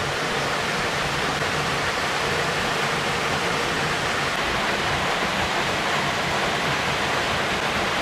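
Waterfall pouring into a rock pool: a steady, even rush of falling water.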